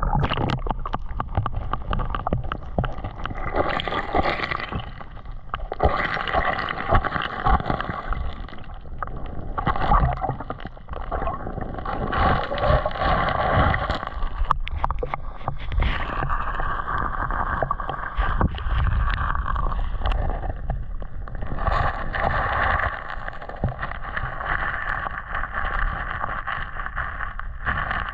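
Water sloshing and gurgling in a creek, in uneven washes that swell and fade every few seconds, over a heavy low rumble of wind buffeting the microphone.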